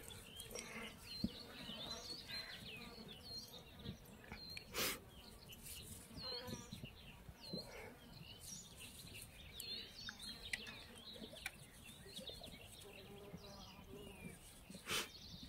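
Small birds chirping repeatedly in short, quick calls over a faint outdoor hush, with a few brief sharp clicks, the loudest about five seconds in and again just before the end.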